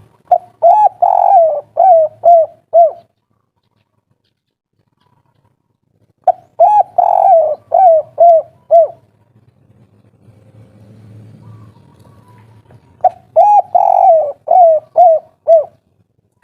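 Spotted dove (tekukur) singing its 'kuk 3' song: three phrases about six and a half seconds apart, each a quick run of short coos with a longer note near the start.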